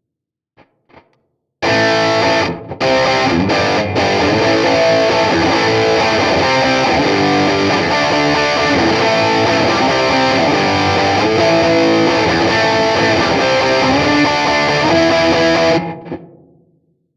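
Electric guitar with heavy distortion from the JamUp amp-simulator app, unprocessed: a loud sustained passage of chords and notes that starts about a second and a half in, stops briefly a few times early on, and dies away near the end. A few faint clicks come before it.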